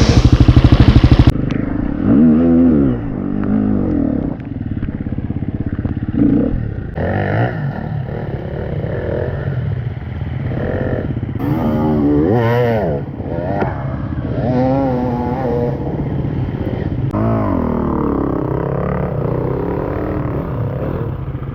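Off-road motorcycle engines revving up and down in repeated blips over a steadier low engine note, very loud for the first second or so and then quieter.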